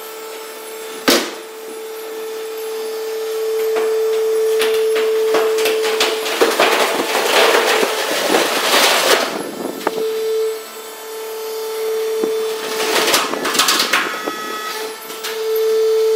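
Waste-tire processing machine running with a steady motor hum, a sharp knock about a second in, and two spells of loud scraping and cutting noise as it works the rubber.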